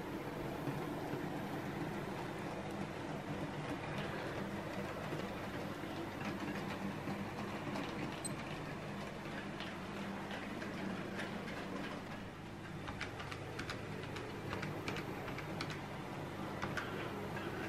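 OO gauge model train running on the track: a steady motor hum with light, irregular clicks, heavier in the second half.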